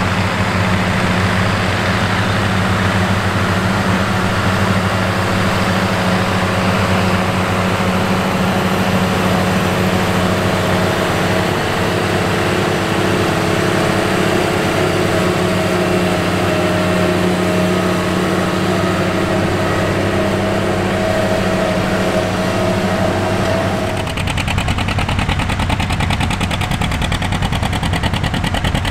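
Steiger Tiger III ST-450's Cummins KTA-1150 turbocharged six-cylinder diesel running steadily under load as the tractor pulls a tillage implement. About 24 seconds in the sound switches to a different big tractor diesel, a John Deere 830 Special working hard, with a fast, even exhaust beat.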